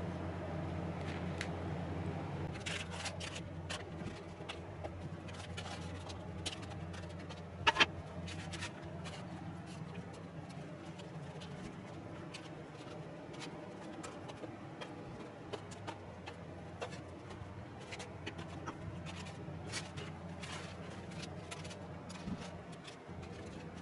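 Light taps and scrapes of fingers placing and shifting slices of steamed sweet potato on a woven bamboo drying basket, over a steady low hum, with a sharp double click about eight seconds in.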